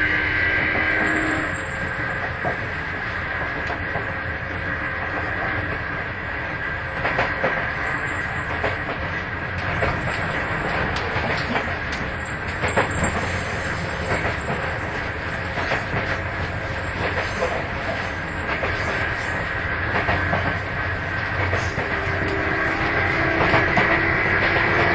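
Sotetsu 8000-series electric train car MoHa 8107 heard from on board, its traction-motor whine with the car's jet-like abnormal noise stopping about a second in. The train then coasts with wheels clicking over rail joints. Near the end the whine comes back and rises in pitch as the train powers up again.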